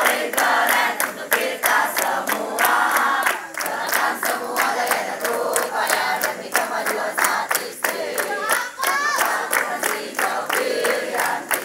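A group of young people singing and chanting together while clapping in a steady rhythm, about four claps a second.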